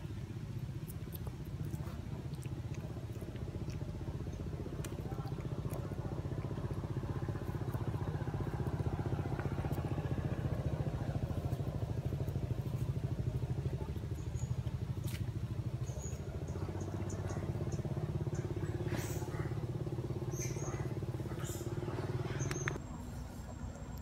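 A motor engine running steadily nearby, a low hum that swells slightly partway through and cuts off abruptly near the end, with scattered small clicks over it.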